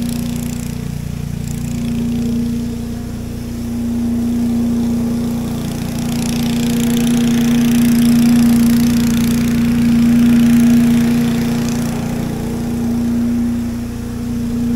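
Small gasoline engine of lawn-care equipment running steadily at high speed with a constant hum. It swells louder about halfway through, with more hiss, then eases off near the end.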